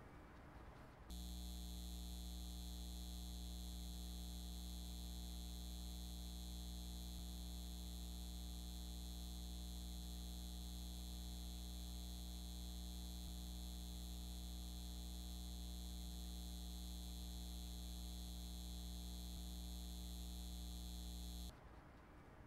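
Steady electrical mains hum with a buzzy edge of many higher overtones, unchanging in pitch, switching on suddenly about a second in and cutting off suddenly about a second before the end.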